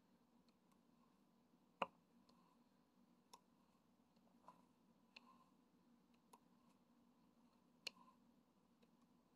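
About six short, sharp clicks at irregular intervals, the loudest about two seconds in, over a faint steady hum.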